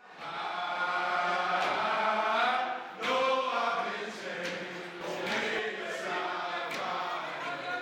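A group of voices chanting in unison in long held phrases, with a few sharp hits.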